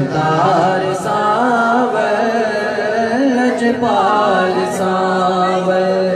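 A man sings a drawn-out, wavering melodic line of a Saraiki devotional kalam through a PA system. A steady drone is held beneath the voice.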